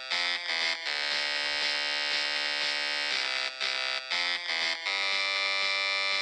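Background electronic music: buzzy synthesizer chords held for about a second at a time, changing pitch, with short breaks between them.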